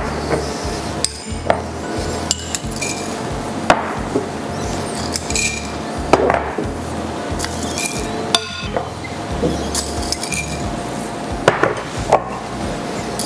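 Peppercorns being tipped from small glass bowls into a non-stick pan, with a dozen or so light, irregular clinks of a small metal utensil against the glass, over background music.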